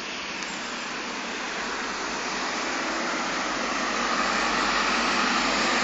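Road traffic noise: a vehicle's tyre and engine rush swelling steadily louder as it approaches.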